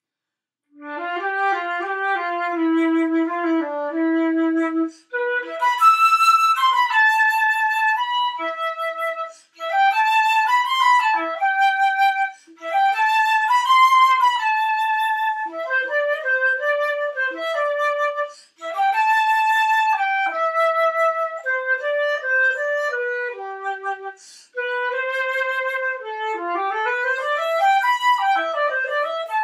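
Solo concert flute playing a melody, starting about a second in, in phrases separated by short breaths, with quick runs up and down near the end.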